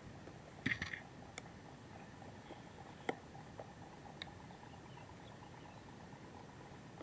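A few small clicks and taps from handling a Nikon D3100 DSLR while it is set up for macro shots: a quick cluster about a second in, then single clicks now and then, over a faint steady hiss.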